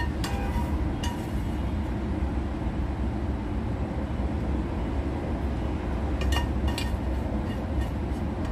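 A spatula and pan clink and knock against a ceramic serving plate as a piece of fried eggplant is set down, a few sharp clinks just at the start and a cluster about six seconds in, over a steady low hum.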